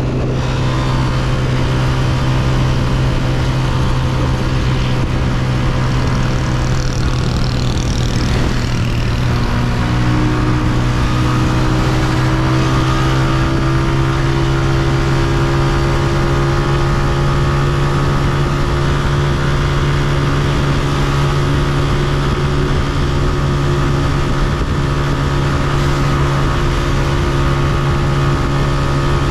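Honda CG125's single-cylinder four-stroke engine running steadily under way, its note climbing slowly from about ten seconds in.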